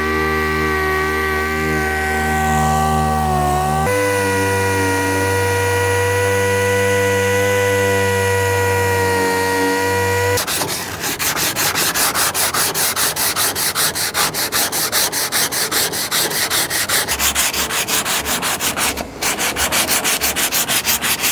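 Air-powered dual-action orbital sander running steadily on body filler over a steel trunk lip, its pitch shifting abruptly about four seconds in. From about ten seconds in, hand sanding with sandpaper on a block: rhythmic back-and-forth strokes, about three a second.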